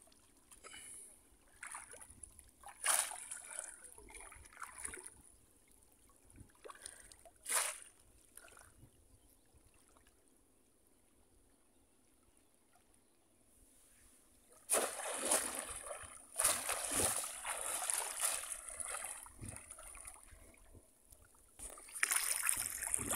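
Shallow floodwater splashing as bamboo cone fish traps are plunged down and people wade. A few separate splashes come in the first eight seconds, then a quiet spell, then continuous sloshing and splashing from about the middle on as a hand gropes inside a trap for fish.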